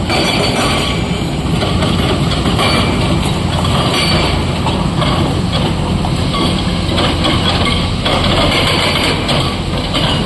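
Heavy diesel quarry machinery running loud and steady: a tipper truck and excavators working, with a dense, fast mechanical clatter.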